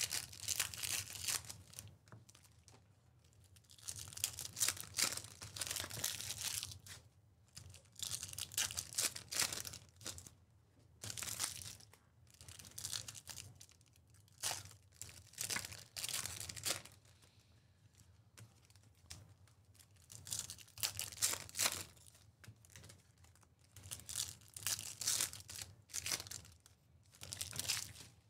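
Plastic trading card pack wrappers being torn open and crinkled, in repeated bursts of a second or two with short pauses between.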